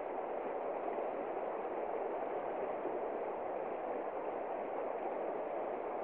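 Shallow river rushing steadily over stones and riffles.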